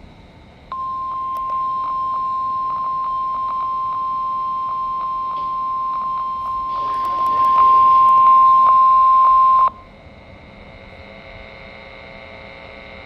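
NOAA Weather Radio 1050 Hz warning alarm tone, sounded for the weekly test: one steady high beep starts about a second in, runs about nine seconds, grows louder for its last few seconds, then cuts off suddenly to faint radio hiss. Small clicks are heard over the tone.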